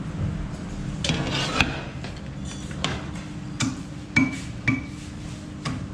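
A metal ladle scraping through cooked chicken biryani and knocking against the side of a large metal pot as the rice is turned and mixed: about seven sharp clinks, with a rasping scrape about a second in, over a steady low hum.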